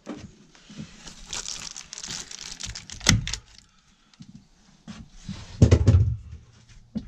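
Foil bubble insulation crinkling as it is handled and brushed against, with a sharp clack about three seconds in and a heavier low thump near six seconds.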